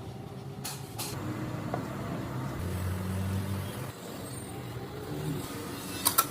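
Heavy machinery running with a steady low hum, growing louder for about a second midway, with a couple of sharp clicks near the end.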